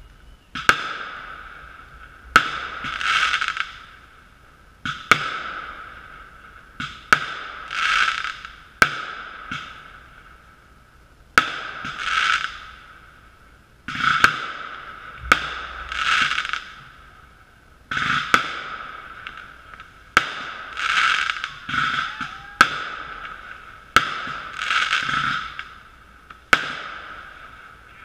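Fireworks shells firing and bursting one after another: a sharp bang about every two seconds, each followed by a hissing crackle that swells and fades. Heard through a sealed waterproof camera housing.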